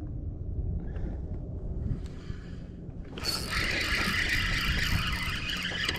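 Wind rumbling on the microphone. About three seconds in, a louder steady whirring hiss starts and holds.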